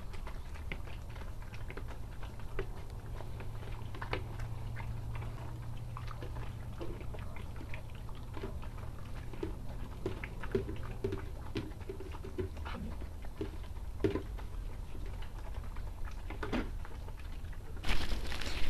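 Puppies eating from plastic bowls: scattered small clicks and chewing sounds over a steady low hum. Near the end, a plastic tarp rustles loudly as it is grabbed and pulled aside.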